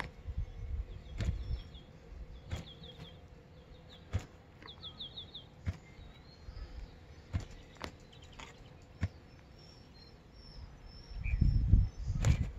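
Sulcata tortoise digging its burrow in soil: scattered clicks and low scuffling of claws and shell working the dirt, growing louder near the end. A small bird chirps in several quick runs of short notes in the first half.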